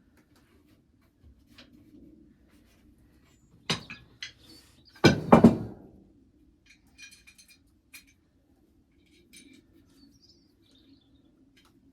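Metal knocks and clinks from handling a steel stove and its bolt-on legs: a couple of sharp knocks, then a loud heavy clunk about five seconds in, followed by light ringing metallic clinks.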